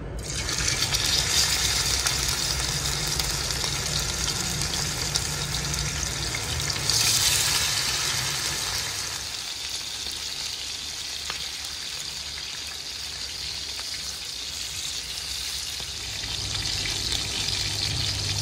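Marinated tuna steaks sizzling as they fry in hot oil in a frying pan. The sizzle flares up about seven seconds in, then settles to a softer, steady frying.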